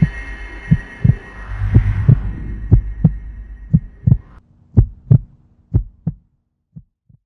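Closing music: a low double thump like a heartbeat, about once a second, over a steady drone. The drone cuts off about four seconds in, and the heartbeat thumps carry on alone and fade away.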